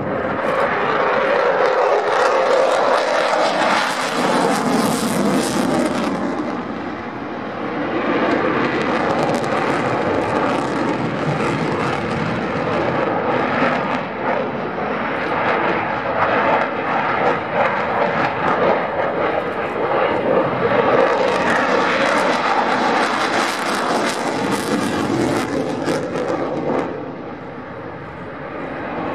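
Jet roar from a Sukhoi Su-27 fighter's twin turbofan engines during a display routine. It runs continuously and swells and fades as the jet manoeuvres, loudest about five seconds in and again past the twenty-second mark, then drops near the end.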